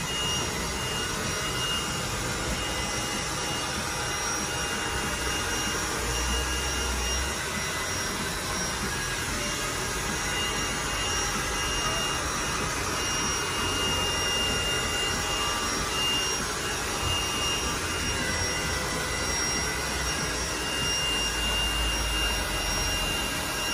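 Hair dryer running steadily: a constant rush of air with a thin, high whine over it.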